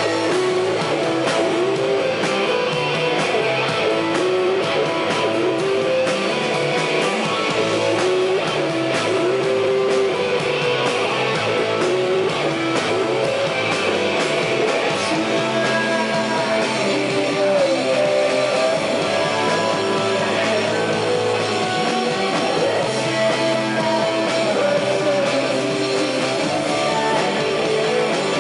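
A live rock band playing, with electric guitar strummed over drums, steady and loud.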